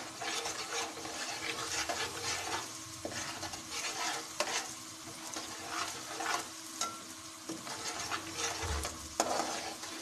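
Onions, ginger-garlic paste and turmeric sizzling in oil in an aluminium karahi, a metal spatula stirring and scraping against the pan again and again. The masala is being fried to cook out its raw taste.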